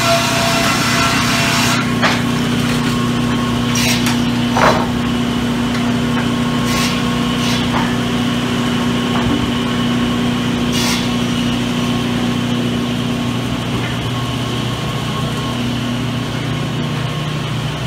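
Sawmill machinery running with a steady motor hum, a blade cutting through wood for the first couple of seconds, then a few scattered sharp knocks of wood being handled.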